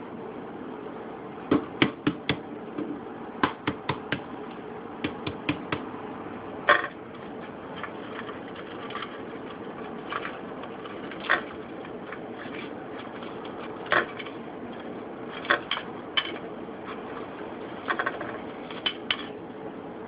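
Shell of a hard-boiled egg being cracked and peeled by hand over a plate: irregular sharp cracks and clicks, often two or three in quick succession, over a steady low hum.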